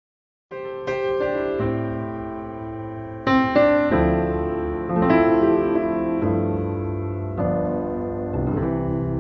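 Background piano music, starting about half a second in, with sustained chords that change every second or so.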